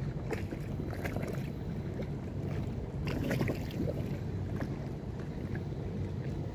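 A boat's engine running steadily, with water splashing and lapping against the hull and wind on the microphone; the splashing is busiest about halfway through.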